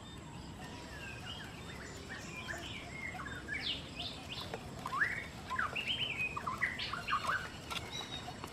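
Quail chirping in a bamboo trap: many short, high, overlapping chirps that rise and fall in pitch. They begin about a second in and grow busiest and loudest in the second half.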